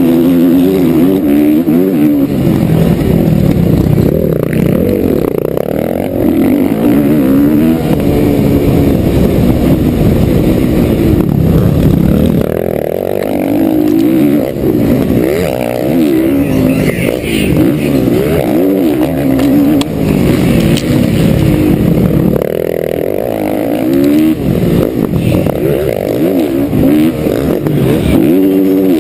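Motocross bike engine close to the camera, revving hard and falling off again and again as the rider accelerates, shifts and backs off around the track.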